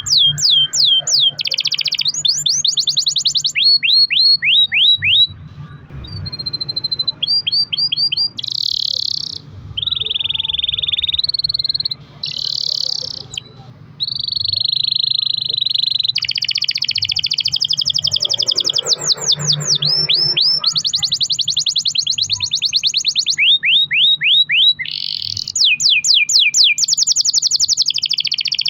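Canary singing a long, loud, high-pitched song. Fast runs of repeated falling notes alternate with buzzy, sustained rolls.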